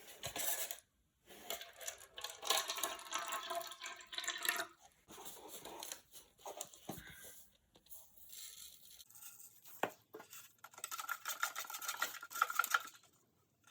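Salt water being mixed in a cup with a spoon: irregular bursts of scraping and rattling with some liquid sound, and a few sharp knocks against the cup.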